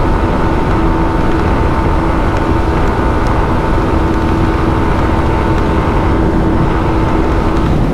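Yamaha R15 M's 155 cc single-cylinder engine held wide open at a steady high pitch near top speed, with heavy wind rush over it. The bike tops out at about 138 km/h and won't climb further, which the rider thinks may be because it is brand new and not yet run in.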